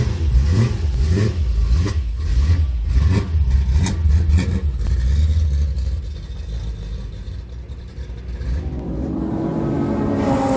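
Car engines running with a heavy low rumble and irregular knocks. Near the end a race car's engine note rises and then falls as it accelerates past.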